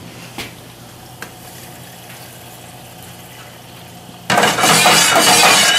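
Cold cream poured from a carton into a hot sauté pan of reduced cognac, hitting the pan with a sudden loud sizzle about four seconds in that keeps going. Before that there are only a couple of light knocks.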